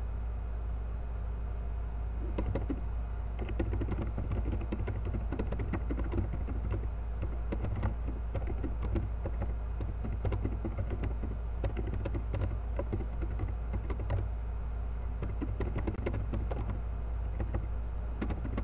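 Typing on a computer keyboard: irregular runs of quick key clicks, with short pauses between bursts. A steady low hum lies underneath.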